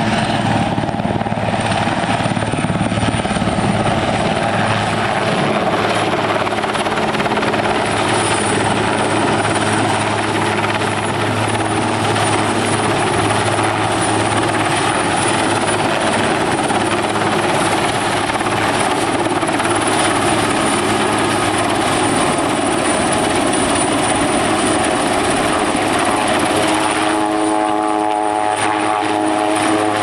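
AS.332 M1 Super Puma military helicopter flying overhead: steady, loud rotor and twin-turboshaft engine noise with a thin high turbine whine above it. Near the end a humming tone of several evenly spaced pitches comes in.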